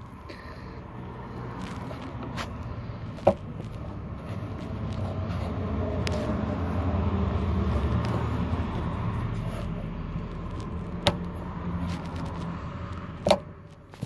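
A motor vehicle passes by: its engine and tyre rumble builds over several seconds, peaks midway and fades away. A few sharp clicks sound over it, the loudest near the end.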